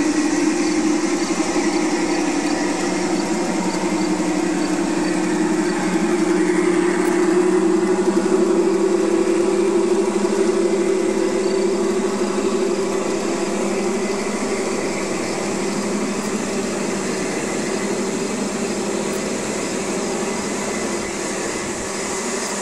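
G-scale model SD-45 diesel locomotives running on garden railway track: a steady mechanical hum and whine, with a faint ticking about twice a second in the first few seconds. It eases off slightly toward the end.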